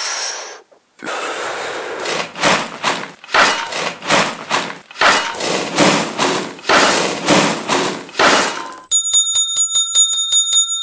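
Shovels scraping into a pile of sand, a rough rhythmic scrape about two or three times a second. Near the end it gives way to slot-machine reels spinning: fast, even clicking under a steady ringing bell.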